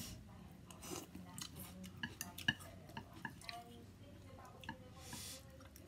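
Chopsticks and a plastic fork clicking and scraping lightly against a ceramic plate while picking through noodles and bean sprouts: scattered soft taps, one sharper click about halfway. A brief soft rush of noise near the end.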